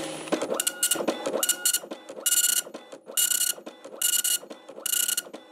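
Dot-matrix printer printing: the print head shuttles across the page in short buzzing passes, each starting with a rising motor whine, about six passes less than a second apart.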